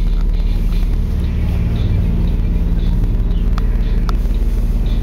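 Car's engine and road rumble heard from inside the cabin while driving in rain, steady and low, with a few sharp ticks.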